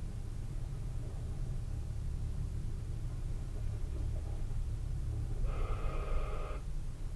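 Low, steady vehicle engine rumble. About five and a half seconds in, a steady-pitched tone is held for about a second.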